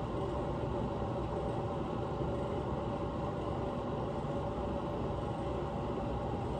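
A steady low rumbling hum that holds an even level throughout, with no distinct strokes or changes.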